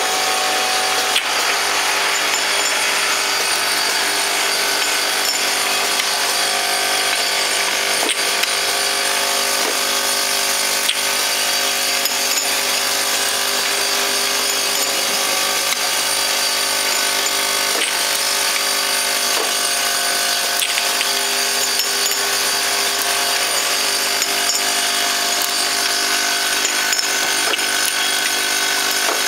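Bottle filling and capping machine running: a steady mechanical whir of motors and feeders with several constant tones, and a few sharp clicks from the bottles and parts.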